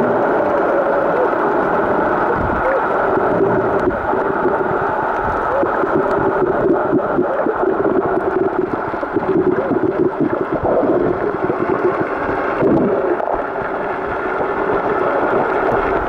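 Underwater sound picked up by a camera below the surface: a steady, muffled rushing with a wavering hum running through it.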